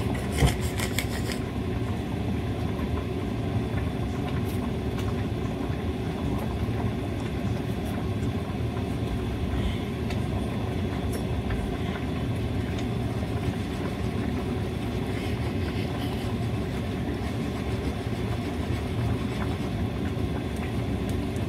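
A steady low mechanical rumble, with a sharp knock about half a second in.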